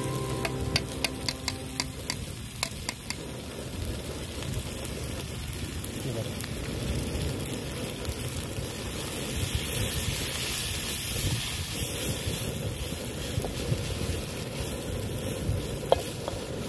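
Noodles and vegetables sizzling in a steel wok on a portable gas camping stove, stirred and scraped with a wooden spatula. A quick run of sharp taps in the first few seconds.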